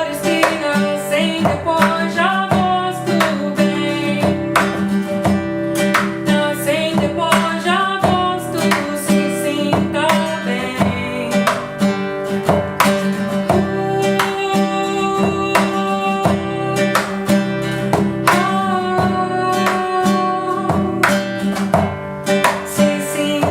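A song performed to acoustic guitar: plucked and strummed chords at a steady pulse, with a voice singing the melody over them.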